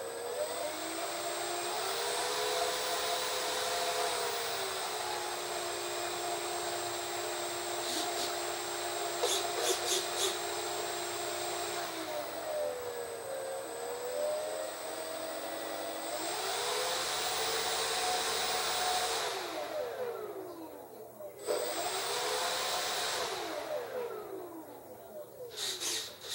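Electric motor of a model airplane spinning its propeller: a whine that rises as it spins up, holds steady, dips and recovers about midway, winds almost down about three quarters in, spins up briefly again, then winds down near the end. A few short clicks sound about a third of the way in.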